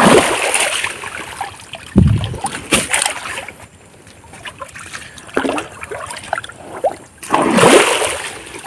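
River water splashing as someone wades and kicks through the shallows to drive fish into a hand net. There are several separate splashes: a big one at the start, another about two seconds in, and a longer churning one about seven seconds in.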